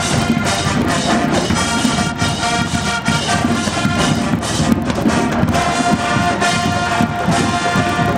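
Marching band of brass, sousaphones and drums playing loudly, with a high brass note held from about five and a half seconds in.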